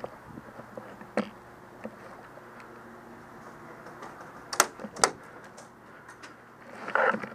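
A few sharp, isolated clicks and knocks, the loudest two about half a second apart past the middle, over a faint steady hum, with a brief rustle near the end.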